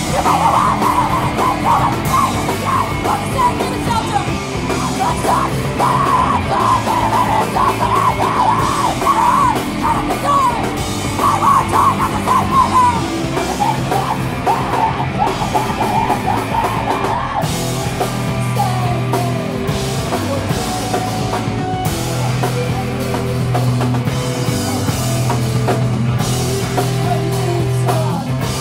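A screamo band playing loud and live: distorted electric guitars and a drum kit, with screamed vocals. About two-thirds of the way through, a high wavering line drops out and the low end gets heavier.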